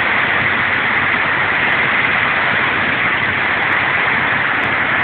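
Hailstorm: hail and heavy rain falling hard on a street, a loud, steady hiss with no letup.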